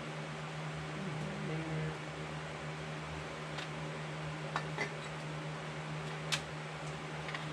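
Steady low hum of a fan or motor running in the workshop. A few light clicks and taps from about three and a half seconds in as the plastic top cover is set onto a Husqvarna 365 chainsaw.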